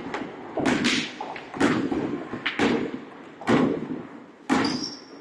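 A basketball bouncing on a wooden gym floor, about one thump a second at an uneven pace, with a short high squeak near the end.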